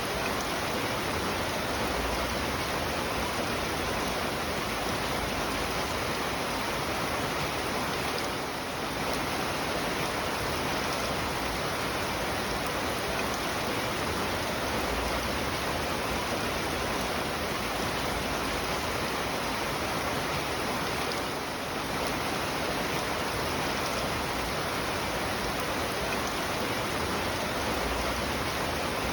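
Steady rain falling, a dense, even hiss that softens briefly twice.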